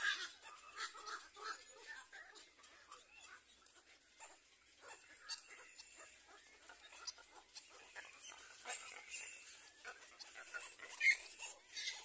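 Black-crowned night heron chicks calling in the nest: a stream of short, irregular high-pitched peeps and ticks, with one louder call near the end.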